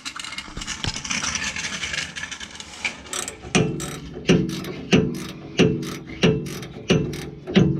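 Hand wrench working the nut on a truck's sway bar end link: metallic scraping and clicking at first, then from about three and a half seconds in a steady run of sharp clicks roughly every two-thirds of a second, each with a brief ring.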